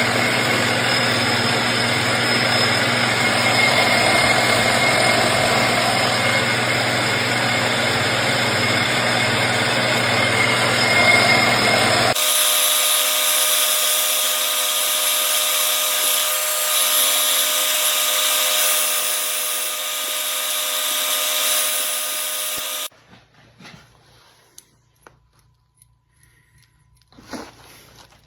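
Metal lathe running while turning down a brass bar, a steady machine noise. The sound abruptly changes character about twelve seconds in and cuts off suddenly about twenty-three seconds in, leaving faint clicks and handling sounds.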